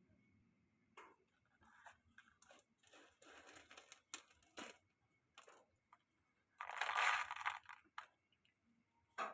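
Scattered small clicks and crinkling rustles of electronic parts and tools being handled on a repair bench, with a louder, longer rustle about seven seconds in.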